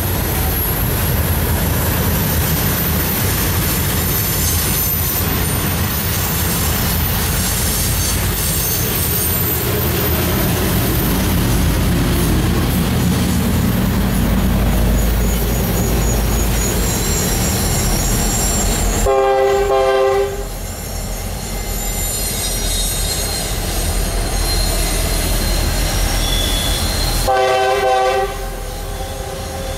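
Freight cars rolling past on a tight curve, with a steady rumble and high-pitched wheel squeal from the flanges on the rail. A locomotive horn sounds twice, two short blasts about eight seconds apart in the later part.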